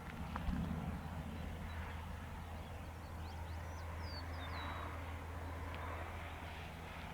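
Outdoor ambience: a steady low hum, with a few short, quick bird chirps about three to five seconds in and a single soft thump near the start.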